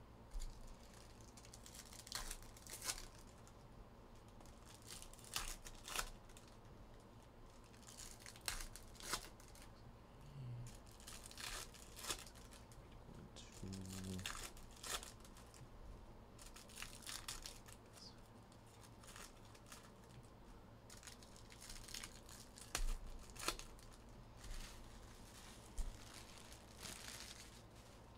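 Foil wrappers of Bowman Chrome trading-card packs being torn open and crinkled, in faint, irregular crackles and rips.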